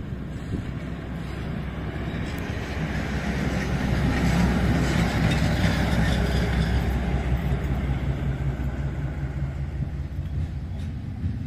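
Diesel shunting locomotive passing at low speed, its engine running with a low hum that grows louder as it draws level about four to six seconds in, then fades as it moves away.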